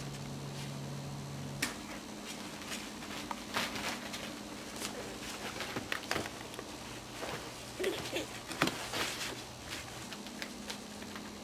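Scattered rustles, scratches and light taps of Maltese puppies' paws scrabbling over plastic sheeting and in a cardboard box, busiest in the middle of the stretch.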